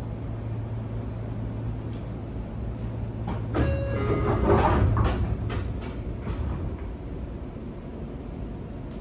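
Sotetsu 8000 series commuter car standing at a platform with a steady low hum. About three and a half seconds in, the passenger sliding doors work with a few clear ringing tones and clunks, loudest around four and a half seconds and over within about three seconds.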